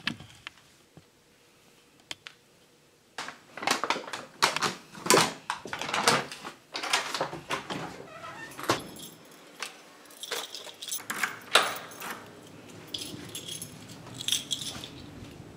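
Keys jangling and rattling with irregular sharp clicks of handling close to the microphone, and a door being opened and shut, the loudest knock about two-thirds of the way through.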